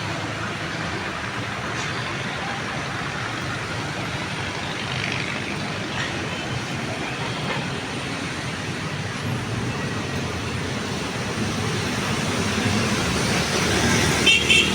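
Steady road traffic: cars, trucks and buses passing on a city boulevard, with the noise building up toward the end.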